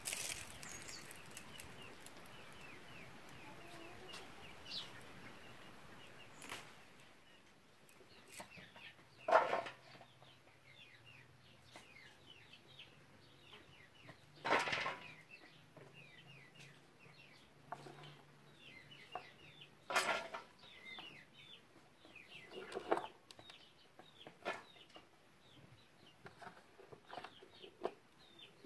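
Outdoor village ambience: small birds chirping again and again, with a few louder short clucks from chickens now and then.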